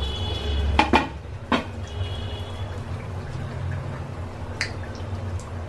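Hot oil sizzling as a rice-flour pitha deep-fries in a small black iron karai, with a long metal spatula clicking sharply against the pan three times about a second in and tapping lightly later. A steady low hum runs underneath.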